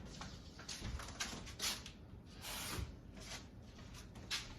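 Small kitchen handling noises: scattered short clicks and scrapes, with a brief rushing noise about two and a half seconds in, as water is added to a too-thick pre-dip batter mix to thin it.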